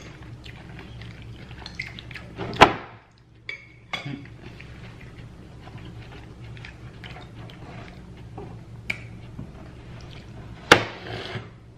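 Eating sounds from a salad meal: small clicks and mouth noises, with two sharp knocks of a utensil against the dish, one about two and a half seconds in and a louder one near the end, over a steady low hum.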